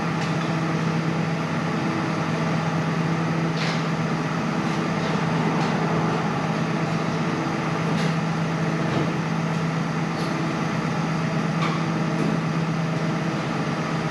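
A steady mechanical drone with a constant low hum, with a few faint clicks over it.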